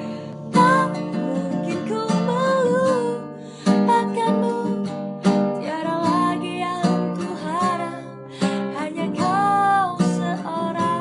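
Acoustic guitar strummed in slow chords, with a woman singing a slow ballad melody over it, holding notes with vibrato.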